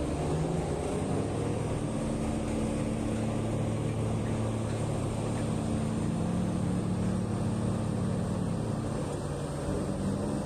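Heavy diesel engine of mining earthmoving equipment running steadily, its pitch shifting slightly about a second and a half in and again near the end.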